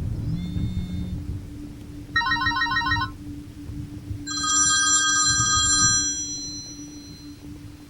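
Telephone ringing: a short trilling ring about two seconds in, then a longer buzzy ring about four seconds in that fades away. A low steady hum and a low rumble sit underneath.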